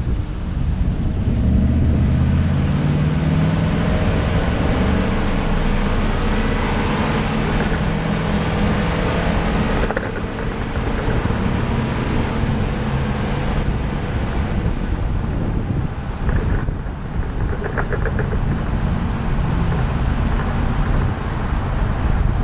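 Ford shuttle bus under way: engine and road noise, the engine note rising and falling as the bus speeds up and slows, with a few brief knocks and rattles.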